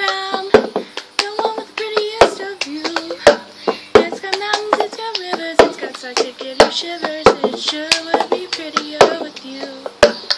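A girl singing unaccompanied while beating out the cup-song rhythm: hand claps and a cup knocked and slapped against the floor, sharp hits in a repeating pattern under the melody.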